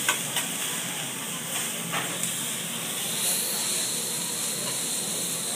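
Fried rice sizzling on a hibachi griddle, a steady hiss, with a few sharp clicks of a metal spatula against the steel plate near the start and about two seconds in.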